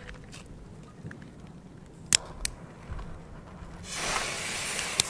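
Two sharp clicks about two seconds in, then from about four seconds a steady hiss as the fuse of a Spanish masclet firecracker catches and starts burning.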